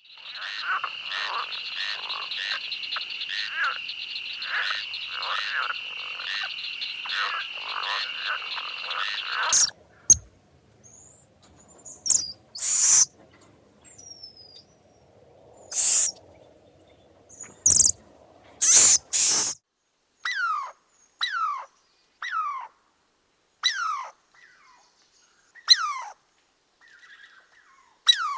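Animal calls. First a steady high-pitched chorus with rhythmic pulsing calls on top of it, which stops abruptly about ten seconds in. Then come scattered sharp, noisy bursts, and finally a series of short calls falling steeply in pitch, about one a second.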